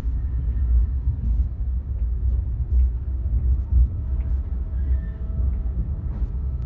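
Steady low rumble inside a Caltrain bilevel passenger car, with a few faint clicks.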